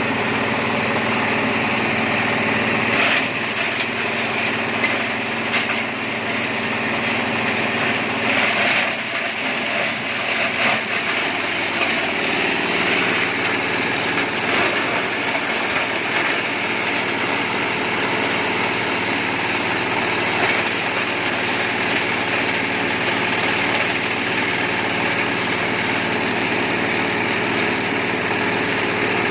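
Engine-driven compost and grass shredding machine running steadily at a constant pitch, with a few short knocks about three seconds in and again around eight to eleven seconds in; the engine's pitch shifts around ten to twelve seconds in.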